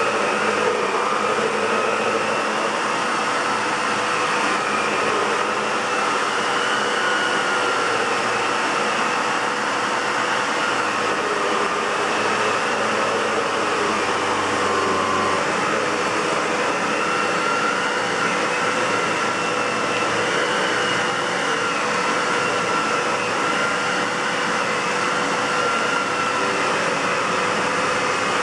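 Aerus Lux 5500 (Electrolux C152C) canister vacuum cleaner running steadily: a rushing of air with a motor whine that drifts slightly in pitch. Its motor has a bad bearing.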